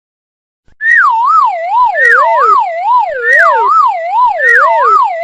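A warbling electronic sound effect: a tone that wobbles quickly up and down while sliding from high to low, repeated four times in overlapping phrases about a second apart, starting about a second in.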